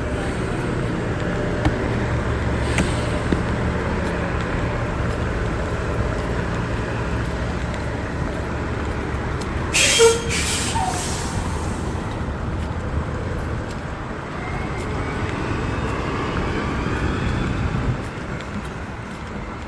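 Street traffic with a heavy vehicle's engine running close by as a steady low hum, and a short loud hiss of air about halfway through. Near the end the engine hum drops away.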